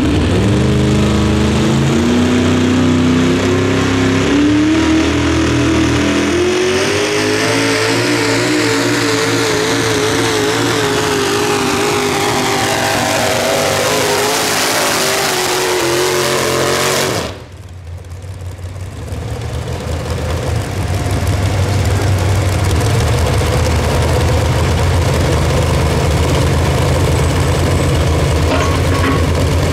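Pulling tractor engine run hard under load, its pitch climbing over the first several seconds and then holding with a wavering pitch while a high rising whine builds. The sound cuts off suddenly about 17 seconds in. A deep, steady engine rumble then builds back and runs on.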